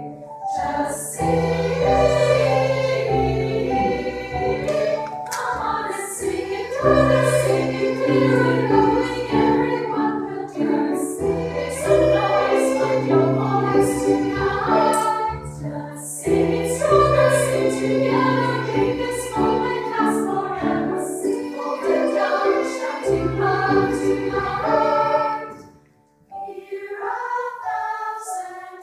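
A women's choir singing. The singing breaks off briefly near the end and resumes more softly.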